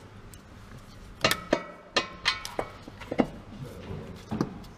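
Several sharp, irregular metallic clinks and taps, some ringing briefly, from metal tools and parts knocking together.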